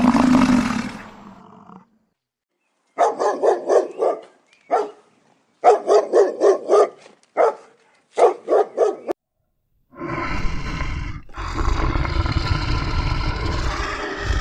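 A dog barking in quick runs of short, sharp barks, between the fading end of a deep roar at the start and a rough, rumbling animal call that begins about ten seconds in.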